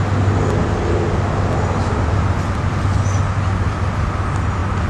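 Steady outdoor background rumble with a constant low hum, like distant road traffic.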